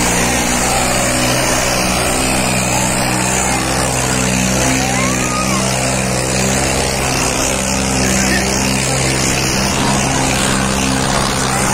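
John Deere 5310's three-cylinder diesel engine running hard at full load, a steady unbroken drone as the tractor strains against two disc harrows dug deep into the soil. Crowd noise sits behind it.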